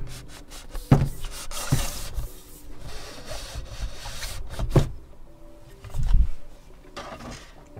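Keyboard's cardboard box and packaging being handled and opened: cardboard rubbing and sliding, with a few sharp knocks and a deep thump about six seconds in.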